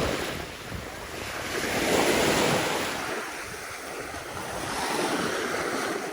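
Sea waves washing onto the shore, with wind buffeting the microphone; the surf swells louder about two seconds in and again about five seconds in.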